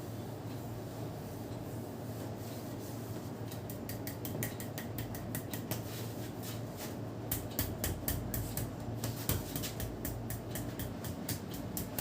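A barber's hands working on a head in a massage: from about three and a half seconds in, a run of quick sharp slaps and clicks, thickest in the second half, over a steady low hum.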